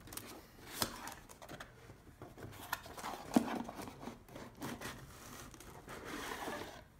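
A cardboard headphone box being opened and its packaging handled: rustling and crinkling of paper and plastic, with scattered light taps and clicks, the sharpest about three and a half seconds in.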